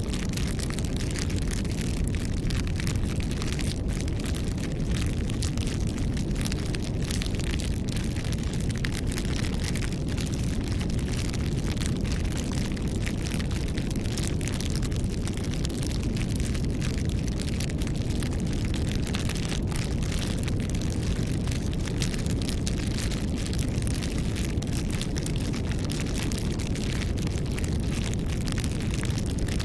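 Campfire burning: a steady low rumble of flames under frequent sharp crackles and pops of burning wood.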